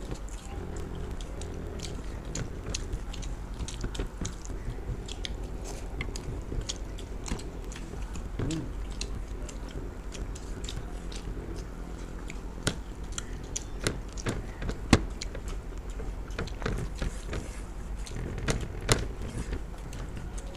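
Chewing and biting of people eating fried rice, chilli paneer and momos, with many small irregular mouth clicks and smacks over a steady low hum.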